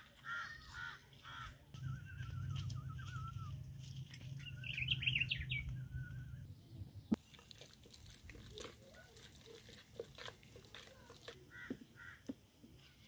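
Outdoor birdsong: a crow cawing a few times at the start, then a songbird warbling and a quick high trill, over a low rumble. From about halfway on come scattered clicks and knocks of a wooden stirring stick against a plastic jug, one sharp knock the loudest.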